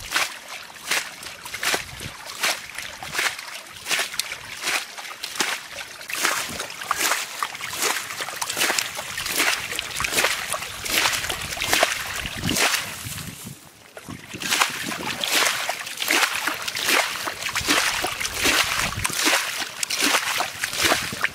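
Muddy water scooped with a plastic bowl and thrown through a woven bamboo basket, splashing over and over a bit more than once a second, with a brief break about two-thirds of the way through: a shallow ditch being bailed out by hand.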